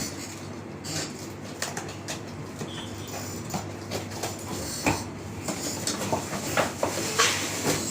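Hair dryer box being opened and its packaging handled: an irregular string of rustles, taps and knocks of cardboard and plastic.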